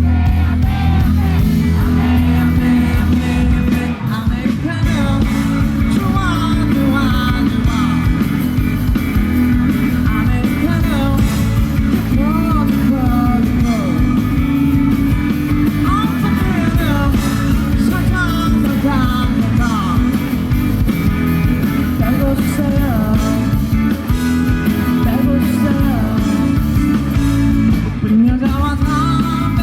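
Live pop band performance: a male lead singer over guitar, bass and drums, with a heavy, loud low end.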